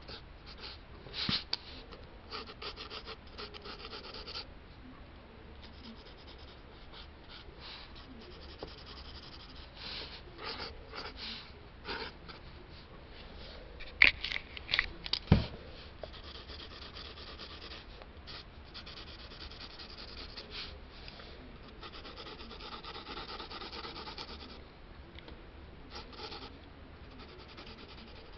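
Pencil scratching on sketchbook paper: runs of quick short strokes, and longer stretches of steady shading. A few sharp knocks stand out about halfway through.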